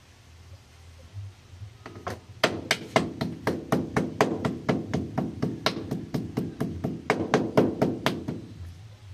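A large kitchen knife rapidly striking a slice of raw pork on a plastic cutting board, about five sharp knocks a second. The knocking starts about two seconds in and stops near the end.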